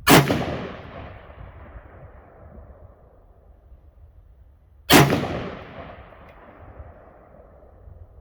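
AR-15 rifle in 5.56/.223 fired twice, about five seconds apart, while being sighted in. Each sharp, very loud shot trails off in a long echo over a couple of seconds.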